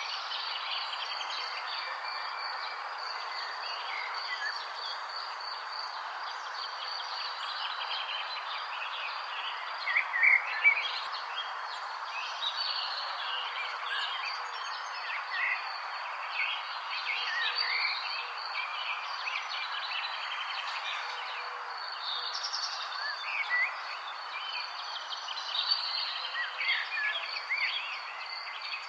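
Forest ambience: many birds chirping and calling in short scattered phrases over a continuous high insect drone and a steady background hiss.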